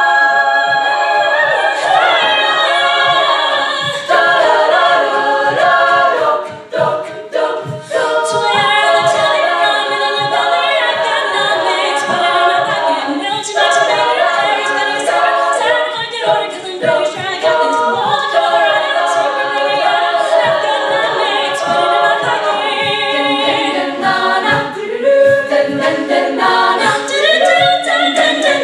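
Women's a cappella group singing a pop song, a solo voice over layered backing voices, with beatboxed vocal percussion keeping a steady beat.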